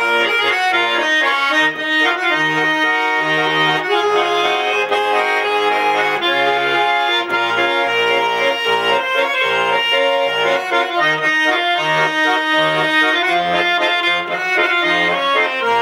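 Garmon (Russian button accordion) played solo in an instrumental interlude: a melody over evenly pulsing bass and chord notes.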